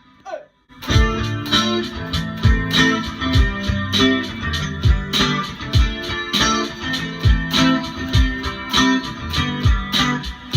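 A live band playing an instrumental passage: guitars over a steady drum beat. The music comes in fully about a second in, after a brief pause.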